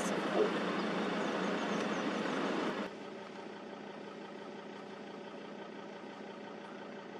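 A vehicle engine idling steadily with a low, even hum, louder and rougher at first, then dropping suddenly to a quieter idle about three seconds in.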